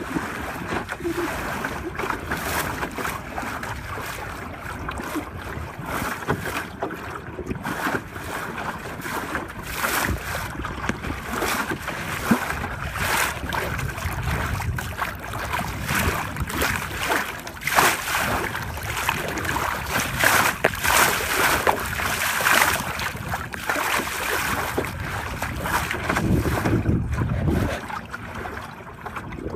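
Water splashing and rushing along the hull of a 12-foot wooden Whitehall sailing skiff under way, in uneven surges, with wind gusting on the microphone.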